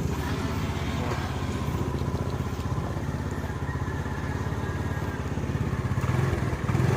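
Motor scooter engine idling steadily, just started by remote through a newly installed alarm system.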